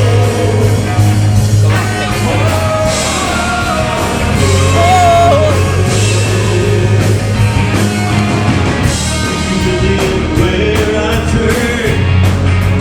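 Rock band playing live, with a lead voice singing over drums and bass.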